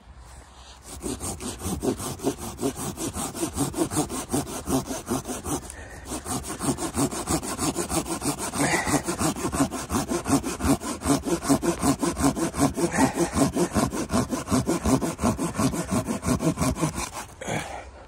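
Hand saw cutting through wood with quick, even back-and-forth strokes, about four a second. There is a brief pause about six seconds in, and the sawing stops just before the end.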